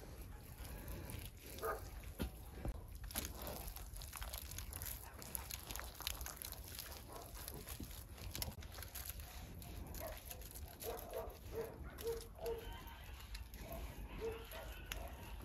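Thick wet clay being scooped and pressed on by gloved hands, with soft slaps and squelches. A run of short animal calls sounds about ten seconds in and again near the end.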